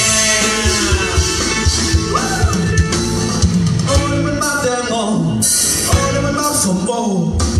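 Live band music with a singing voice over drum kit and bass.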